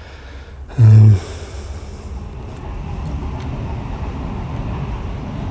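2013 Royal Enfield Classic 500 single-cylinder engine being turned over on its electric starter without firing: a steady, fast-pulsing cranking. The fuel pump has not run, so the engine gets no fuel. A short loud hum comes just before the cranking, about a second in.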